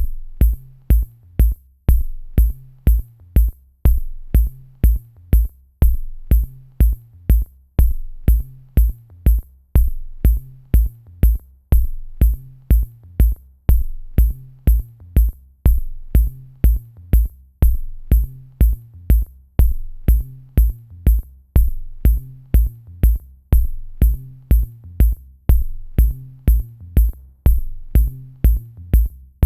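Electronic dance music with a drum-machine beat: a deep kick drum about twice a second, crisp high ticks on each beat and a bass line underneath.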